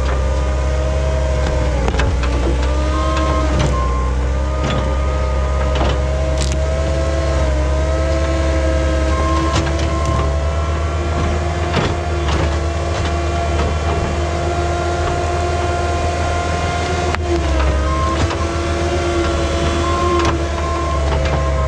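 Skid steer engine running steadily under load, its pitch dipping briefly about two seconds in and again around seventeen seconds, with scattered knocks and clicks, as the machine works a stubborn tree stump out of the ground.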